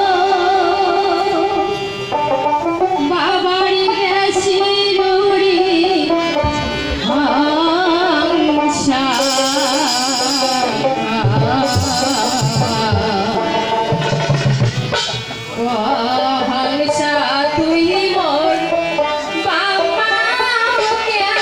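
A woman singing a devotional folk song through a PA system, her long held notes wavering and gliding, with drums and other instruments accompanying her.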